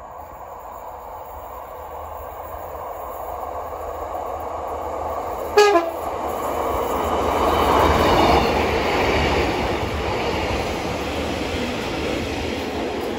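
Diesel multiple-unit passenger train approaching and passing close by, its engine and wheels growing steadily louder to a peak about eight seconds in, then easing off. A short horn blast sounds a little over five seconds in, the loudest moment.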